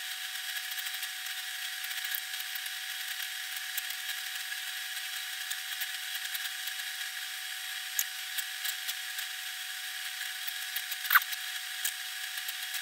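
Masking tape being wrapped by hand around a carbon fishing-rod blank to build up an arbor for a grip: faint scattered ticks and handling noises over a steady hiss, with a brief squeak about eleven seconds in.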